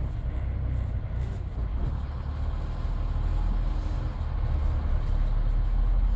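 Midland Red BMMO D9 double-decker's diesel engine running with a steady low rumble as the bus drives along, heard from inside the cab.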